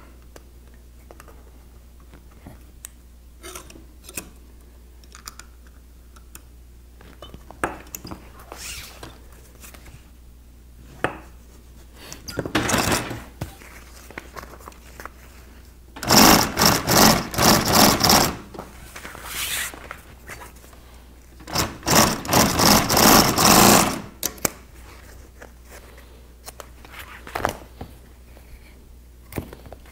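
Industrial sewing machine stitching binding tape along a canvas zipper flap in short runs: one brief run, then two longer runs of about two seconds each. Small handling clicks fill the pauses between runs.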